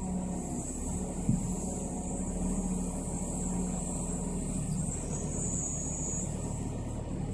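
Scania 6x6 timber truck's diesel engine running steadily while it powers the truck's hydraulic loading crane lifting logs aboard, with a single knock about a second in.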